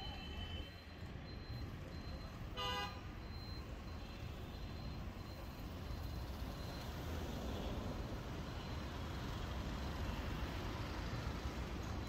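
Road traffic noise, a steady hum of passing vehicles, with one short vehicle horn honk about two and a half seconds in.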